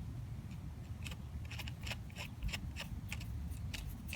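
Faint, irregular small metallic clicks, a few a second, as the old nut is turned onto the freshly re-threaded 10 x 1.25 shock stud.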